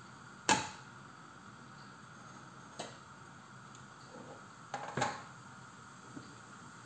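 A paratha sizzling faintly in a pan on a gas stove, with a few sharp knocks of the pan and cooking utensils: a loud one about half a second in, a lighter one near three seconds, and a double knock around five seconds.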